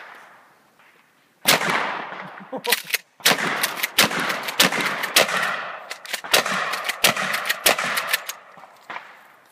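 12-gauge shotgun fire: one shot about a second and a half in, then a rapid string of shots, several a second, for about five seconds before it stops.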